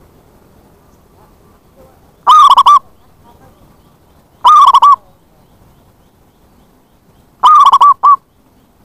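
Zebra dove cooing loudly: three short phrases of quick, wavering coo notes a couple of seconds apart, the last ending in a brief extra note.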